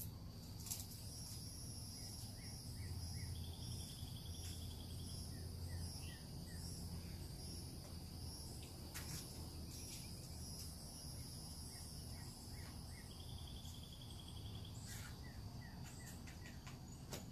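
Outdoor natural ambience: insects keep up a steady high-pitched buzz while birds call. Groups of short chirps recur, and a brief trill comes twice, about ten seconds apart. A low rumble runs underneath.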